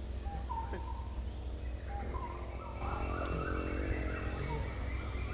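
Birds calling over a steady low outdoor rumble, with short whistled notes in the first two seconds and busier, wavering calls from about three seconds in.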